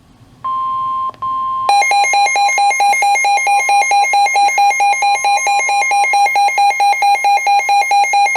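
NOAA Weather Radio's warning alarm tone, a steady tone near 1 kHz with a short break about a second in, signalling that a new weather warning is about to be read. From under two seconds in, a loud electronic alarm beeps rapidly over it, about five beeps a second.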